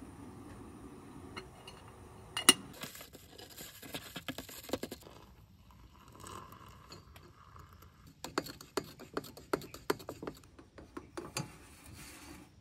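Light clicks, clinks and scrapes of hard objects being handled, with one sharp knock a couple of seconds in and a quicker run of clicks later on.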